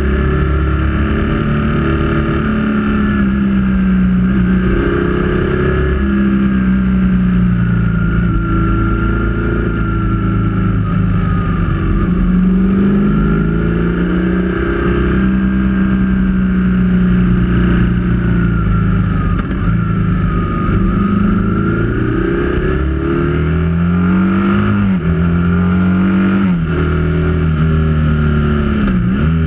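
Motorcycle engine heard from on the bike, running under load, its pitch holding steady for stretches and then rising and falling with throttle and gear changes, with a quick rev and drop twice near the end.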